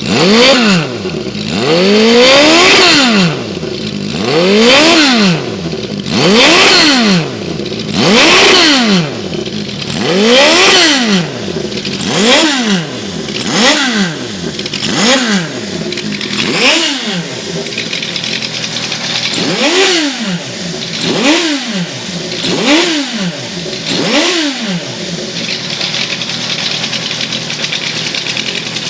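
Honda CB400Four's air-cooled inline-four blipped through a machine-bent aftermarket exhaust with a medium-size silencer. About a dozen quick revs rise and fall, roughly one every one and a half to two seconds, then the engine settles to a steady idle near the end.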